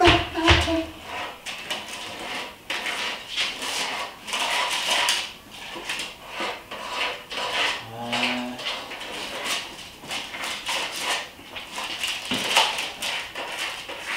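A round metal cake tin being handled and worked by hand on a counter: irregular scraping, rubbing and light metal clatter with small knocks. A brief low hum-like sound comes about eight seconds in.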